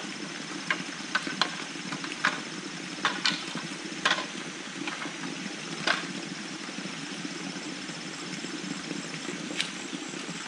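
Bamboo being handled and worked by hand: irregular sharp knocks and clacks, most of them in the first six seconds and one more near the end. Under them runs a steady low rushing sound and a faint steady high whine.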